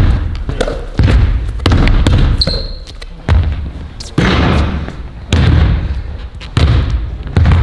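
A ball bounced hard on a hard floor, about one heavy thud a second at an uneven pace, each thud echoing in a large hall. One short high squeak comes about two and a half seconds in.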